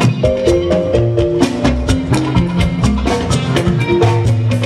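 Instrumental passage of live Fuji band music: a steady rhythm of drums and percussion over a moving bass guitar line and short melodic notes, with no singing.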